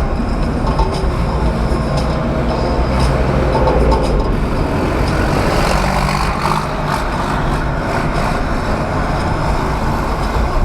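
Steady low rumble of a moving road vehicle, loud and even throughout.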